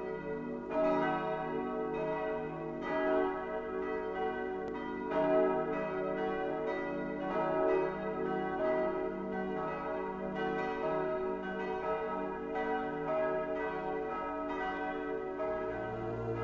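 Church bells ringing in a peal, struck one after another about twice a second, each stroke ringing on under the next. A low tone comes in near the end.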